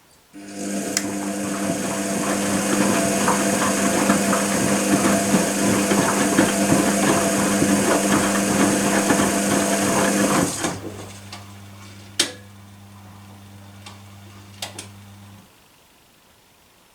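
Privileg Compakt 92 washing machine running, a motor hum with rattling, starting suddenly and loud for about ten seconds. It then drops to a quieter steady hum with a couple of clicks and stops.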